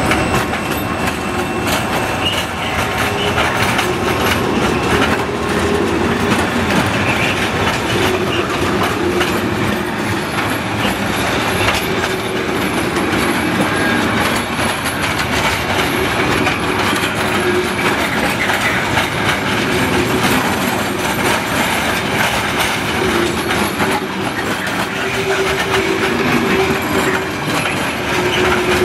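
A long freight train of loaded timber wagons rolling past close by as it departs behind an Infranord MZ diesel locomotive: steady rumble and clatter of wagon wheels on the rails, with a faint intermittent squeal.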